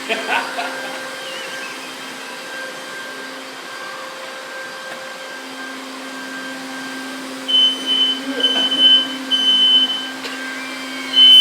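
Vacuum cleaner motor running with a steady hum. About two-thirds of the way in, a smoke alarm starts sounding in high, piercing beeps in groups of three with a pause between, set off by firecracker smoke.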